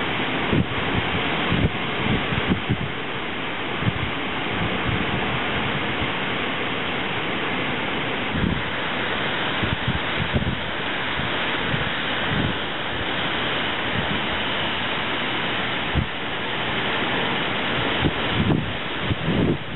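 Strong post-tropical storm wind gusting through trees with heavy rain, a steady loud rushing noise. Repeated gusts buffet the microphone with short low thumps.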